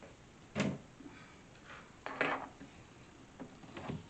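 Wooden parts of a storage box being handled and set against each other: a knock, then a louder clunk about two seconds in, and a few light clicks near the end.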